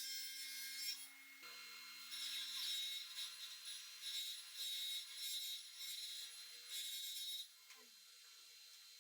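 Wood being worked by hand in repeated scraping, rasping strokes, roughly one a second, stopping about seven and a half seconds in.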